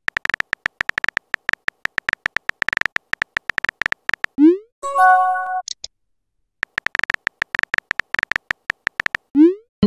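Texting-app sound effects: rapid phone-keyboard tapping clicks, about ten a second, as a message is typed out, then a short rising swoosh and a bright electronic chime as the message is sent. The tapping starts again about two-thirds of the way through and ends in another rising swoosh near the end.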